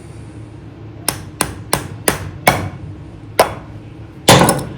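A series of sharp hand-tool taps and knocks on a small engine's carburetor as its top is being taken off. There are about five quick taps, then one more, then a louder cluster of knocks near the end.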